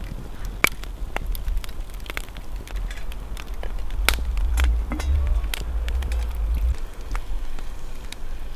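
Wood campfire crackling, with irregular sharp pops, over a low rumble of wind on the microphone.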